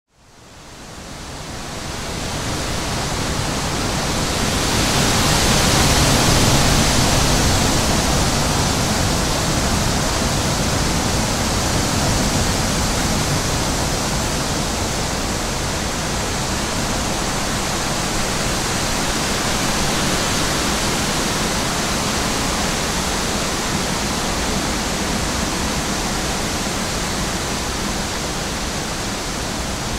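High wind blowing through a tree in a steady rush, with gusts buffeting the microphone in a low rumble. It swells over the first few seconds, is strongest about six seconds in, then holds steady.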